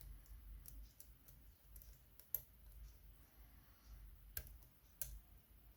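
Faint, sharp metallic clicks of a homemade pick working the pins of a euro cylinder lock held under tension, spaced irregularly: the clearest comes a little over two seconds in, then two more around four and a half and five seconds in.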